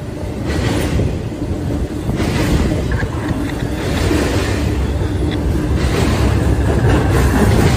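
Intermodal freight train of highway trailers on railcars passing close at speed: a loud, steady rumble of wheels on rail that swells every two seconds or so as the cars go by.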